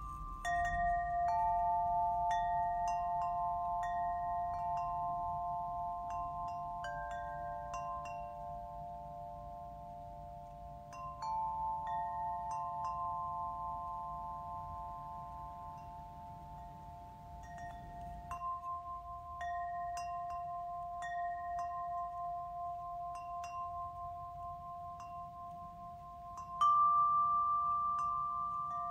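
Tuned metal chimes ringing, with new notes struck every few seconds and each one sustaining long and overlapping the others. A low hum sits under them until about two-thirds of the way through, and there is a louder strike near the end.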